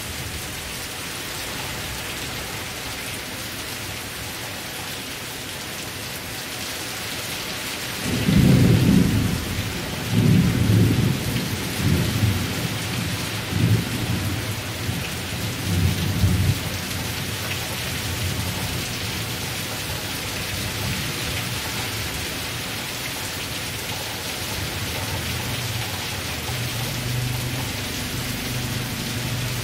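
A steady downpour of rain falling onto a grapevine's leaves. About eight seconds in, thunder rolls in several low swells until about sixteen seconds, then dies down, with a fainter low rumble near the end.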